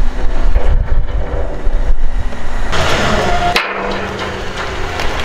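Heavy steel boat frame being dragged on a taut wire cable over pipe rollers and timber blocks: a low rumble with creaking and knocking, and a sharp crack about three and a half seconds in.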